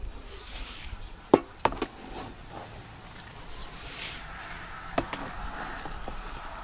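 Whole oats being scooped and poured into a feed bucket, each pour a short rushing hiss, with a few sharp knocks of the scoop against the bucket.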